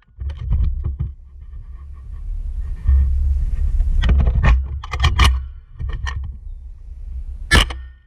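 Suppressed CMMG Guard .45 ACP carbine being fired and handled, heard from a camera mounted on the rifle: a scatter of sharp cracks and clacks, several close together in the middle and the loudest near the end, over a low rumble.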